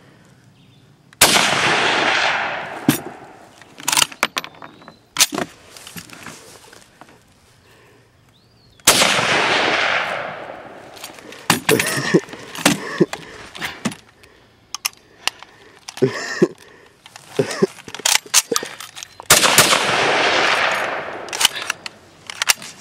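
Three shots from an SKS rifle, roughly eight to ten seconds apart, each followed by a long fading echo. Between the shots come sharp metallic clicks and clacks as the bolt is worked by hand: the gas system is shut off in grenade-launching mode, so the rifle does not cycle itself.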